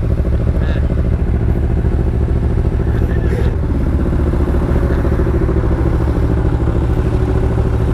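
Kawasaki Ninja 300's parallel-twin engine running steadily in traffic. About halfway through, another engine tone joins in as a cement mixer truck pulls up close beside it.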